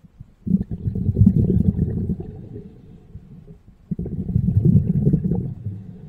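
A diver's exhaled breath bubbling out of a scuba regulator, heard underwater as a low bubbling rumble. Two long exhalations, the first starting about half a second in and the second just before the four-second mark, with a short quieter pause between them for the inhale.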